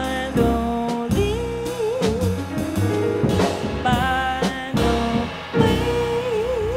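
Jazz trio playing: a woman sings long held notes with a wide vibrato over upright double bass and a drum kit with cymbals.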